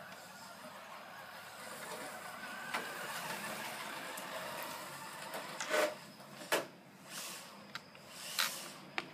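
Vintage Tamiya Celica Gr.B radio-controlled car driving on grass, its battery-powered electric motor and drivetrain whining, with the pitch rising and falling as the throttle changes. In the second half come several short, loud, sharp bursts.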